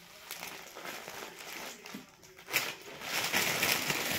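Clear plastic packaging crinkling and rustling as packaged bed linen is handled, louder in the second half.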